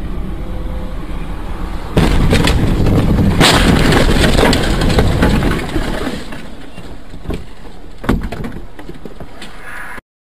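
Dashcam recording of a car in a collision: steady road and engine noise, then about two seconds in a sudden loud crash with crunching and scraping that lasts a few seconds and fades. A single sharp knock follows near the end before the sound cuts off abruptly.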